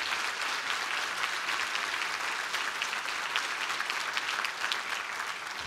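A church congregation applauding: many hands clapping in a steady patter that eases off slightly near the end.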